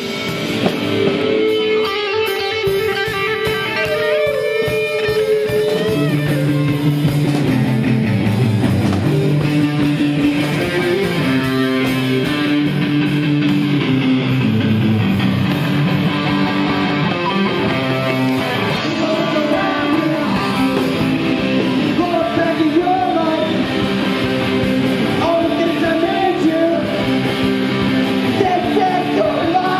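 A live rock band playing, with electric guitar to the fore and a singer's voice over it.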